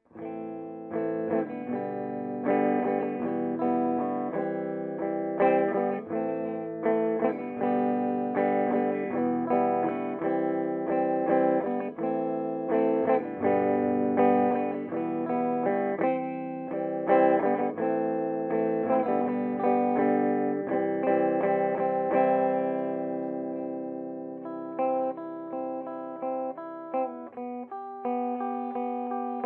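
Electric guitar played clean through a Peavey Bandit 112 combo amp with a 12-inch speaker: picked chords and single notes. Playing starts abruptly, and near the end a chord is left to ring and fade before picking resumes.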